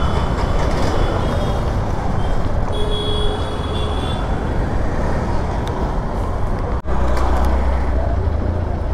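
Busy city road traffic heard on the move: a steady, loud rumble of vehicle engines and road noise, with a few faint high tones over it and a brief dropout about seven seconds in.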